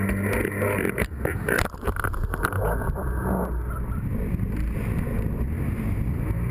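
Sea-Doo RX jet ski's two-stroke engine running at speed. Spray and hull slaps crash over the microphone about one to two seconds in. After that, rushing water and wind partly cover the engine until it comes through plainly again near the end.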